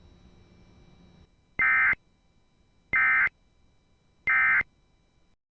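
Three short, loud bursts of warbling digital data tones, about a second and a half apart: the SAME End of Message (EOM) code that closes a NOAA Weather Radio Emergency Alert System message. A faint radio hiss stops just before the first burst.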